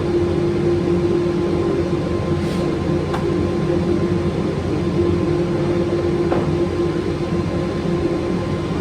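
Makita belt sander running steadily under load, sanding a wooden brick mould.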